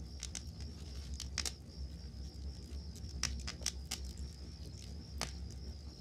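Wood campfire crackling and popping, with a sharp pop about a second and a half in, a cluster of pops between three and four seconds, and another near the end, over the steady high chirping of crickets.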